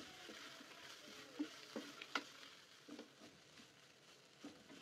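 Wooden spatula stirring a shredded-chicken filling in a nonstick wok, faintly sizzling, with a few soft scrapes and taps of the spatula, the clearest about one and a half to two seconds in.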